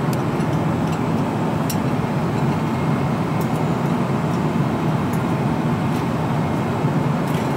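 Airliner cabin noise: the steady, deep rushing drone of engines and airflow heard from inside the cabin in flight, with a few faint ticks.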